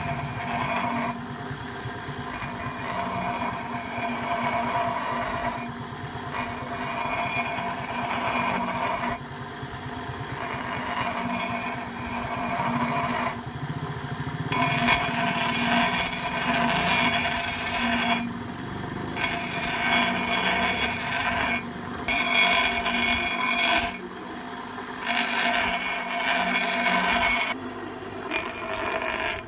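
Shrill, high-pitched metal grinding on steel, in repeated bursts of a few seconds each with short breaks between.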